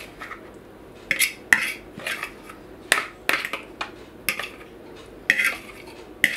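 A utensil scraping and knocking against a mixing bowl as wet quiche filling is scraped out into the base: about a dozen short clicks and scrapes at irregular spacing.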